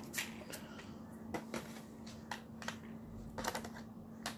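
Hands handling board-game components, cards, cardboard and hard plastic pieces, with scattered light clicks and taps and a faint steady hum underneath.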